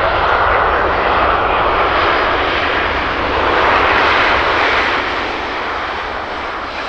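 Jet engines of a Boeing 737-500 airliner (CFM56-3 turbofans), a steady loud rush that swells about three to four seconds in and then eases off near the end.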